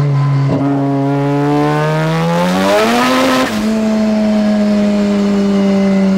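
Mazda RX-7 FD race car's engine and loud, leaky exhaust heard from inside the stripped cabin while driving. The revs climb for about three seconds with a rush of hiss near the top, dip a little, then hold and slowly ease off. The exhaust leaks at a cracked, worn joint.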